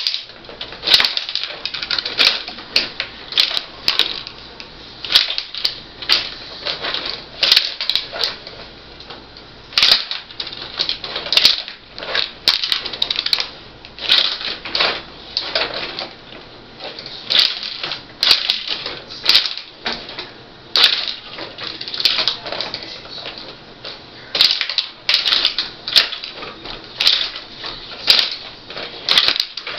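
Rod hockey table in play: metal rod players clacking against the puck and the rink boards, with rods rattling as they are slid and spun, in quick irregular runs of sharp clicks.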